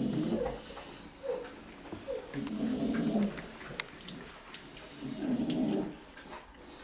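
A sleeping pet snoring, a rasping snore about every two and a half seconds, three in all. A couple of short squeaky sounds come between the first two.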